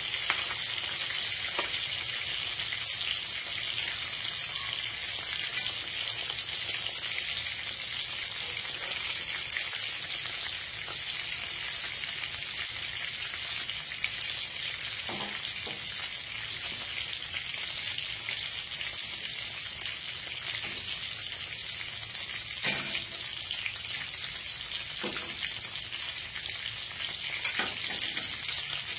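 Fish frying in hot oil in a wok: a steady sizzle, with a few sharp clicks scattered through it, the loudest about two-thirds of the way in.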